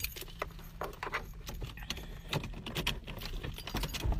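Scattered clicks and rustles of a phone being handled and moved about inside a car, over a steady low rumble.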